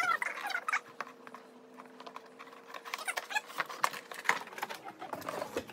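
A cardboard box being handled and opened by hand: scattered clicks, taps and scrapes as the end flap is pried loose and the box is shifted on a wooden table.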